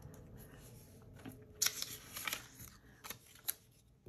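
Cut-out paper craft pieces rustling and sliding as they are handled and turned over on a wooden table. The loudest rustles come just before the halfway point, and two short ticks follow near the end.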